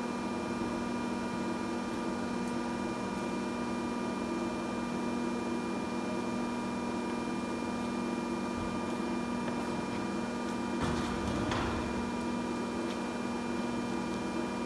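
Steady hum of a pipe-bending machine running at rest, holding several even tones. About eleven seconds in, a brief rush of noise rises over it for about a second.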